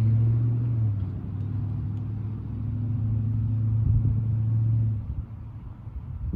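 A motor vehicle's engine running with a steady low hum, which fades away about five seconds in. A brief knock comes at the very end.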